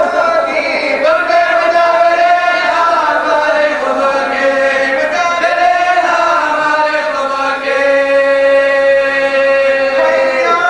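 Male voices chanting a marsiya, a mournful Urdu elegy, in long drawn-out notes; the last long held note falls away near the end.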